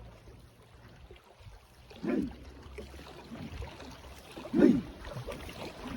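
Two short shouted calls from a paddling boat crew, about two and a half seconds apart, over faint water and boat noise.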